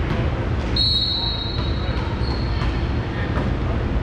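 Referee's whistle blown once, a shrill steady blast of nearly a second, the signal for the server to serve, over steady gym background noise.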